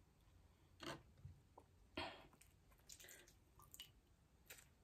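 Faint, wet squishes and a few small clicks as fingers dip king crab meat in butter sauce and pull apart sauce-covered seafood, with the loudest click about two seconds in.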